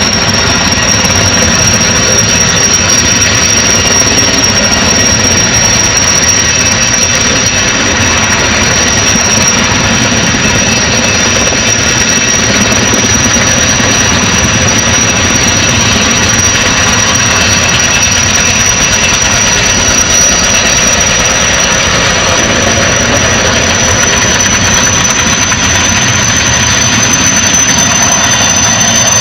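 Turbine helicopter running close by: loud, steady rotor and engine noise under a high-pitched turbine whine that creeps slightly upward in pitch.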